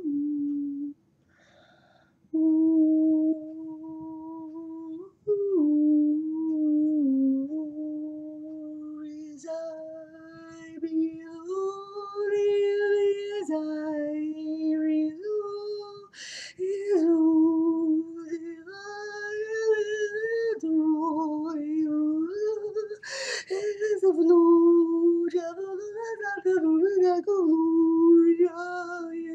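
A man singing alone in a high voice, holding long, wavering notes with few clear words, and drawing two sharp breaths along the way.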